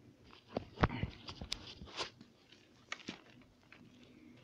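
Handling noise: scattered light knocks, taps and rustles as a handheld camera and a food container are moved about, with one sharper knock about a second in.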